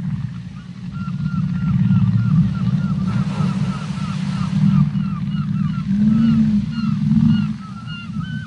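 Whale and seagull sound-effect mix: a dense low rush with deep whale moans near the end, over which a quick run of short, high, curved calls repeats about two to three times a second from about a second in.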